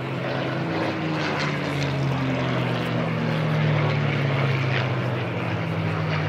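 A formation of WWII piston-engined propeller fighters (CAC Boomerang, Spitfire, P-40 Kittyhawk and P-51 Mustang) flying past. The engine sound swells, with one tone falling in pitch during the first three seconds as the aircraft go by.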